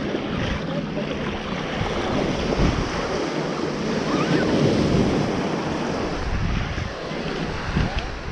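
Ocean surf washing onto the beach, building to a louder swell in the middle and easing off, with wind buffeting the microphone.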